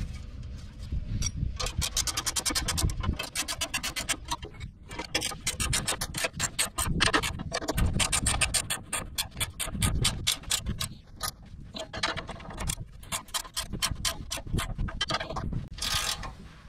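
Ratcheting wrench clicking in quick runs, with short pauses between strokes, as it tightens the nuts on a stainless steel exhaust band clamp.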